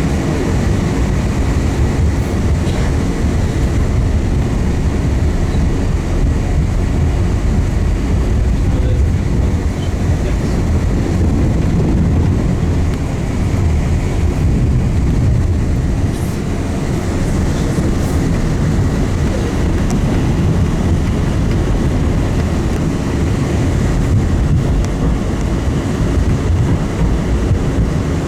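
Tram rolling along the rails: a steady low rumble of wheels and running gear, with a few faint clicks.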